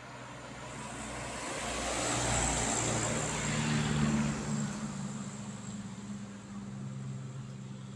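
A road vehicle driving past: engine and tyre noise swell to a peak about three to four seconds in, then slowly fade.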